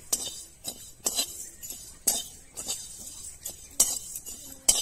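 Metal spatula scraping around a metal wok, stirring whole spice seeds and dried chillies as they dry-roast, the seeds rattling against the pan. Sharp scrapes and clinks come about every half second to second.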